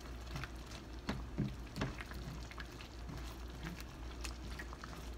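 Thick butter chicken sauce simmering in a nonstick frying pan, with a plastic spoon stirring through it and a few soft clicks and pops, mostly one to two seconds in.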